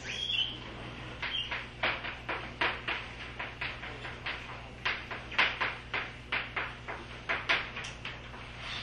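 Chalk tapping and scraping on a blackboard as someone writes, in short irregular strokes about two or three a second.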